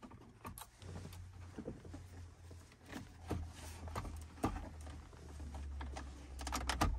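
Plastic dash trim of a Dodge Caravan clicking and knocking as the climate-control panel is pushed back into the dashboard: scattered clicks, with a sharper knock about four and a half seconds in and a quick run of clicks near the end, over a low steady hum.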